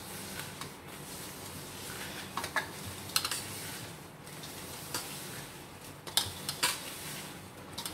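Hands mixing roasted coarse gram flour and powdered sugar in a steel plate: a steady soft rustling scrape of the crumbly mixture against the steel, with a few light clicks scattered through it.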